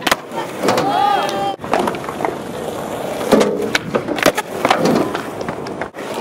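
Skateboard wheels rolling on a concrete park, with repeated sharp wooden clacks of the deck popping, landing and knocking. A voice calls out briefly about a second in.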